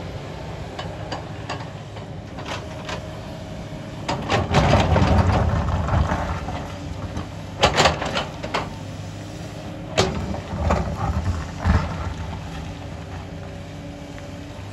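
Sany hydraulic crawler excavator's diesel engine running steadily while its bucket digs and pushes loose shale and broken rock. A long grinding rush of tumbling stone comes about four seconds in, followed by several sharp knocks of rock against rock and steel.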